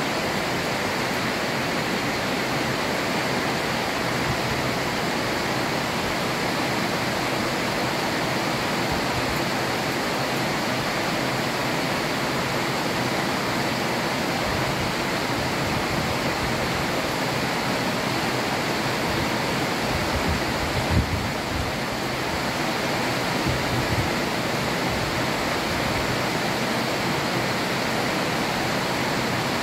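Heavy tropical rain falling steadily over a city, an even hiss with no let-up. About two-thirds of the way through there is a brief low rumble.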